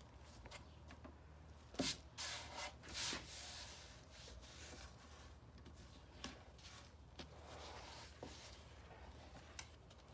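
Faint handling noises from a wooden nightstand being turned over: a knock about two seconds in, then rubbing and scraping, and a few light clicks later on.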